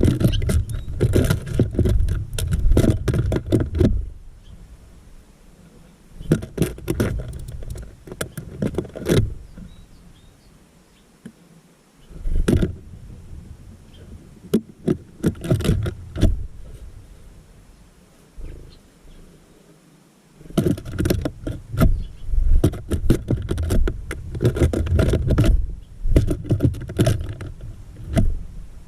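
Small birds pecking and scrabbling in a bird feeder right against the camera: bursts of rapid taps and clicks on the feeder, with a low rumble under the loudest bursts and short quieter pauses between them.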